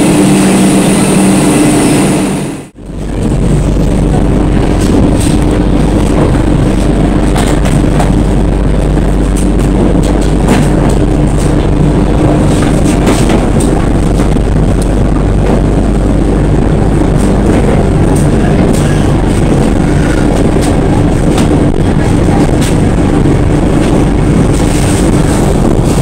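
Steady low rumble of a train running, heard from on board, with occasional clicks. Before it, a steady hum with a couple of held tones cuts off abruptly about three seconds in.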